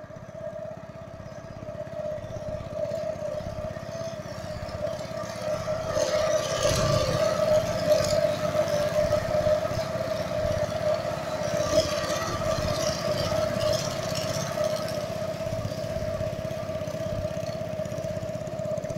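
Motor of a motorized country boat running steadily with a pulsing low rumble, passing under a concrete bridge. It grows louder over the first few seconds and is loudest through the middle, with extra hiss in two stretches.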